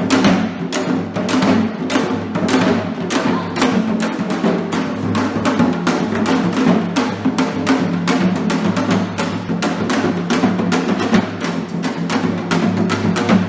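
Traditional Korean music with fast, dense drumming: rapid strokes several times a second over a steady low accompanying tone.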